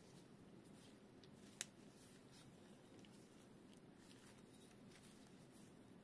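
Faint handling of a folding gas-canister stove stand with stainless steel legs in gloved hands, mostly near silence, with one sharp click about a second and a half in.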